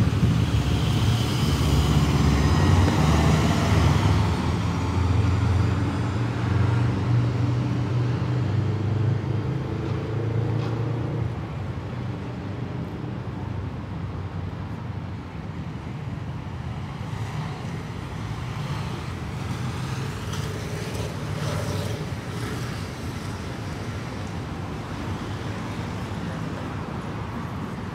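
A motor vehicle's engine running close by, loudest in the first few seconds and fading away over about the first ten seconds as it drives off. After that, a steady city traffic rumble.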